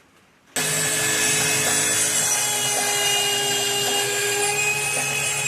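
Electric power tool running steadily at constant speed, a whirring hum with a few fixed tones over a noisy grind, cutting in abruptly about half a second in after near silence.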